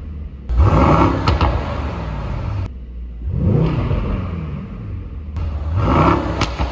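Brabus-tuned twin-turbo V8 of a Mercedes-AMG GT63 S revved twice at a standstill with its exhaust valves open in Sport Plus: a sharp blip about half a second in, then a longer climb to a peak near the end, each falling back to idle with a crack from the exhaust.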